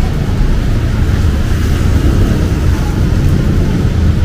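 Steady city street noise: a low rumble of traffic mixed with the hiss of rain.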